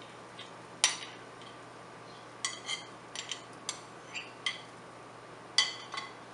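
Sharp, ringing clinks of a spoon against a bowl, about a dozen at irregular intervals, as beaten egg mixture is scraped out onto a paratha on the griddle.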